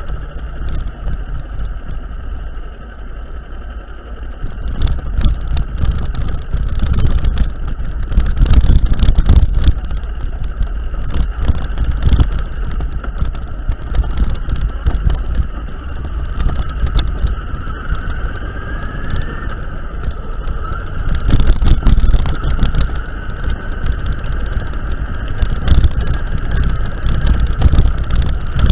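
A vehicle travelling over a rough, broken-up mountain road: a heavy low rumble that swells and drops, with rattles and a steady engine whine that rises briefly about two-thirds of the way through.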